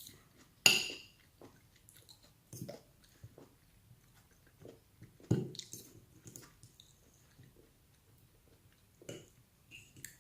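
A person chewing and biting food with wet mouth clicks and smacks, the loudest smack a little under a second in and another around five seconds in.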